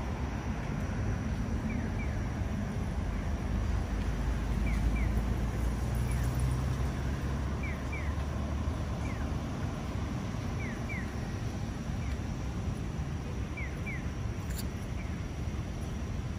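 Road traffic running at a city intersection, swelling as vehicles pass about five seconds in, while a pedestrian crossing's electronic bird-chirp signal sounds short pairs of quick falling chirps every few seconds.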